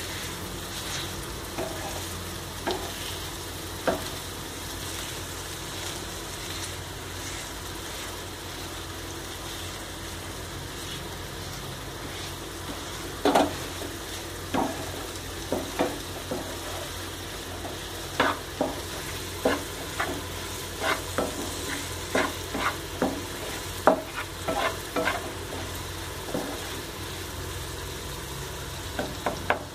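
Spatula stirring and mashing boiled elephant foot yam in a non-stick kadai over a low sizzle of oil. From about a third of the way in the spatula knocks and scrapes against the pan irregularly, once or twice a second.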